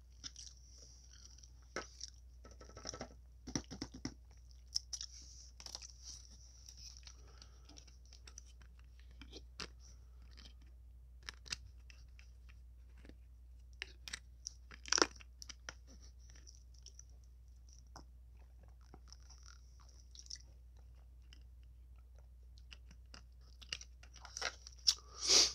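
Close-miked chewing of salad, with scattered irregular crunches; a sharper, louder crunch comes about halfway through and a cluster of them near the end.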